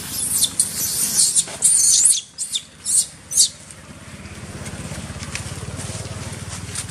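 Baby macaque screaming: a run of shrill, high-pitched squeals, about eight in quick succession, that stop about three and a half seconds in.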